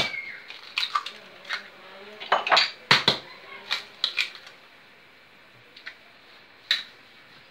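Eggs being cracked one after another on the edge of a mixing bowl: a run of sharp taps and shell cracks against the bowl, most of them in the first half, with a couple of lone taps near the end.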